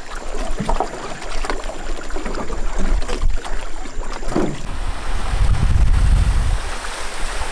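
Water splashing and sloshing around a small aluminium boat as it is paddled and then pushed through shallows, with wind rumbling on the microphone, heavier in the second half.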